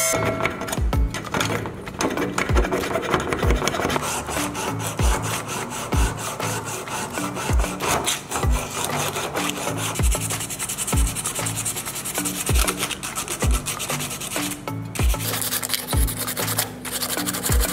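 Sandpaper rubbed quickly back and forth by hand over a rusty, scratched metal model car body, with a steady scraping. Background music with a regular bass beat plays underneath.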